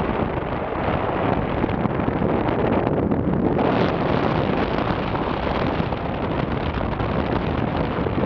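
Steady wind rushing over the camera microphone as a parasailer is towed through the air.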